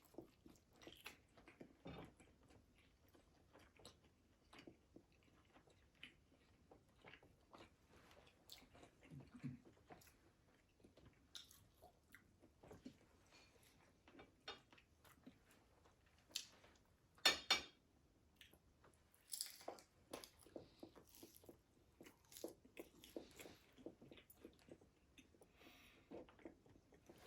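Close-miked chewing and crunching of crispy fried egg rolls, a string of small, sharp, wet clicks and crunches. One sharper crunch stands out about 17 seconds in.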